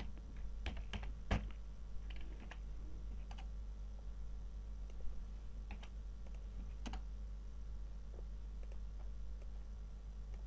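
Computer keyboard typing and mouse clicks: a few quick key presses in the first second and a half, then sparse single clicks, over a faint steady low hum.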